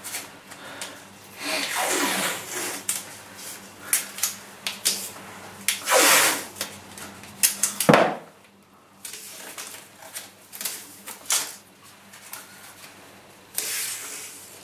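Masking tape being pulled off the roll and torn, in several short ripping pulls, with rustling and taps as the strips are handled and pressed down.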